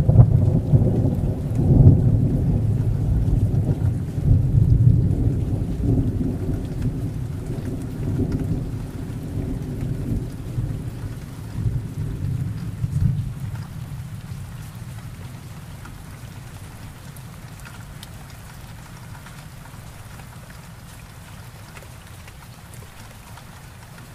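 A long roll of thunder breaks suddenly and rumbles in several swells for about a dozen seconds, then slowly dies away. Steady rain falls throughout.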